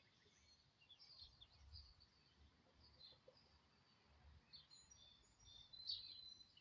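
Faint bird chirps and twitters scattered over a quiet background, with a slightly louder burst of chirping near the end.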